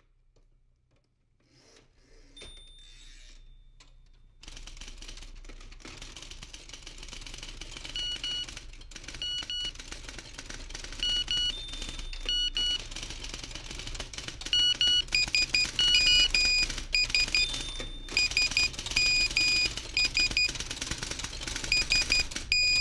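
Sound-design build-up: a dense, rapid clicking clatter that swells steadily louder, joined about eight seconds in by short high electronic beeps, often in pairs, that come more and more often toward the end.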